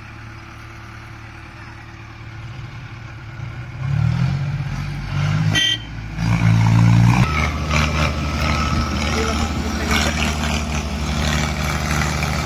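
Mahindra tractor's diesel engine working under load as it pulls a trailer of sugarcane, getting louder as it approaches from about a third of the way in, with a change in engine note about halfway.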